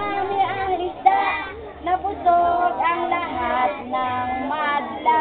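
A group of children singing together in unison, led by a woman's voice, with notes held and changing like a simple song.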